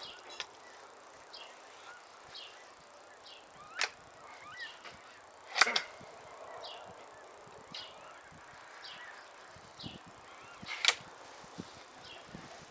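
Three sharp cracks from a Benjamin Trail NP .22 break-barrel air rifle being fired and handled, the loudest about five and a half seconds in. Faint high chirps repeat about once a second behind them.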